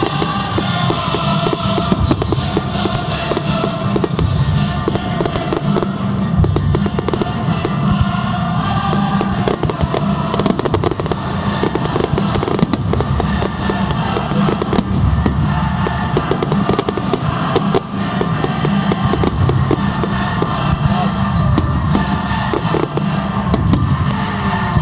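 Fireworks display: a continuous run of bangs and crackling bursts, over loud music played through loudspeakers.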